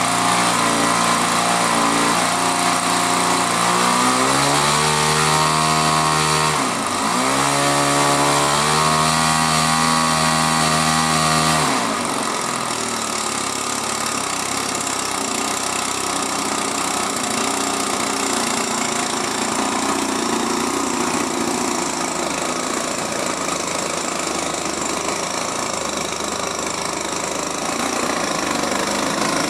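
XYZ 53 cc gasoline boxer twin in a large RC warbird, running through its exhaust and propeller. Over the first twelve seconds it is throttled up in steps, with a brief dip about seven seconds in. It then drops to a lower, steadier idle for the rest.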